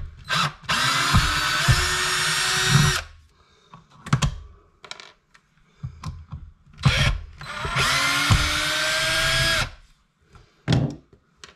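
Power drill-driver running twice, about two seconds each time, its motor whine rising as it spins up, driving the screws on an electrical switch box. Short clicks and handling knocks between the runs.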